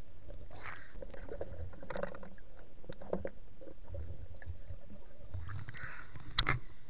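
Muffled underwater river noise picked up by an action camera in its waterproof housing, a low rumble with small scattered clicks and knocks. A sharp water splash near the end as the camera breaks the surface.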